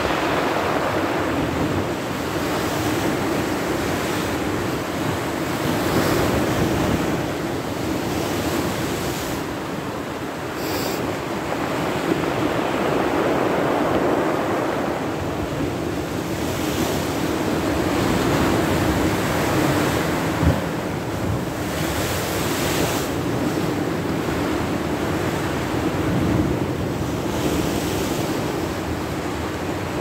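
Sea surf churning and breaking against the stone wall of a harbour pier, swelling and easing every few seconds, with wind buffeting the microphone. One brief thump a little past the middle.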